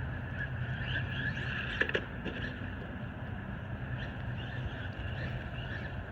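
Traxxas Maxx electric RC monster truck being driven, a steady wavering whine with a couple of sharp knocks just under two seconds in.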